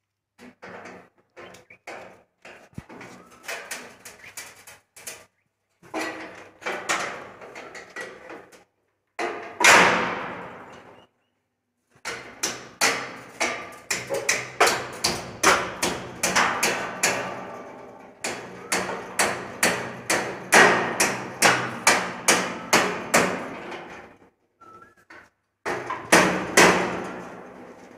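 Hammer blows on the metal end bracket of a steel rolling shutter, with the corrugated shutter rattling and ringing. Scattered knocks give way to one loudest bang about ten seconds in, then a long run of blows at about two a second.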